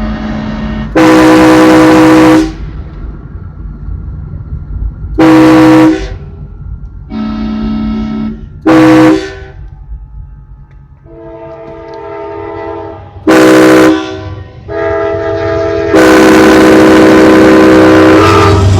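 Multi-chime train air horns trading blasts: a loud, close horn sounds five chords, short ones and a long one held near the end, answered in the gaps by quieter chords of a different pitch from the Amtrak train's horn farther off.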